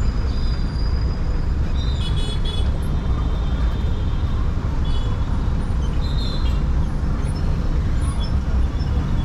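Busy city street traffic heard from among the vehicles: a steady low rumble of engines and road noise, with short high-pitched toots a few times.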